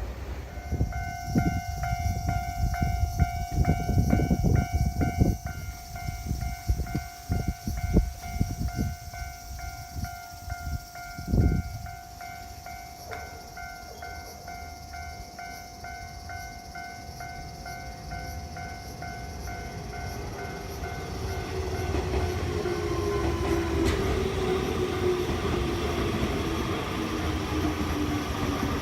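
Japanese railroad crossing warning bell ringing in a steady, even pulse while an electric train passes, its wheels thumping over the rail joints for the first dozen seconds. The bell fades after about twenty seconds as another train draws near, with a motor whine falling steadily in pitch.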